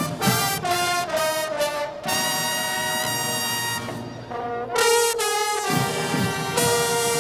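Marching band brass (trumpets and trombones) playing: a quick run of short notes, then long held chords.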